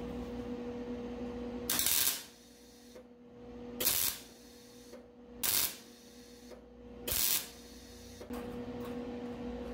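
MIG welder firing four short welding bursts, each under half a second and roughly two seconds apart: plug (rosette) welds filling holes in sheet-metal trunk pans and frame rails. A steady low hum runs at the start and again near the end.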